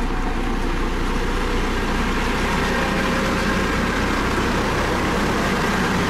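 Dynapac CC522 tandem asphalt roller running steadily as it rolls over fresh asphalt: an even diesel engine drone with a low hum underneath.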